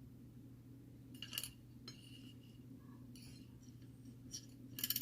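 Small hard objects clinking and rattling in a few short bursts, the loudest near the end, as tools or parts are handled on a workbench, over a steady low hum.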